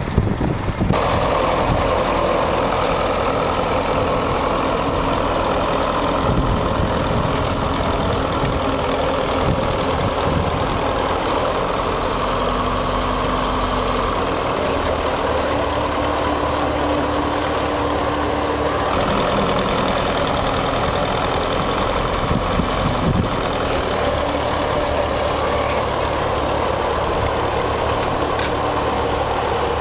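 Twin Ford diesel engines of a Doe 130 Triple D tandem tractor running steadily while ploughing.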